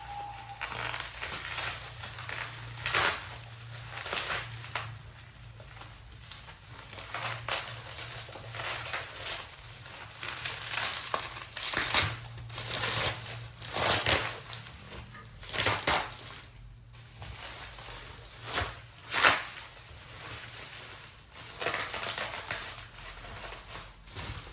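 Packaging being handled during unboxing: paper and plastic wrapping crinkling and rustling in irregular bursts, some louder than others.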